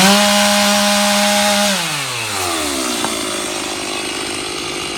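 Two-stroke chainsaw revved up to full throttle, held there for about a second and a half, then dropping back to a steady idle.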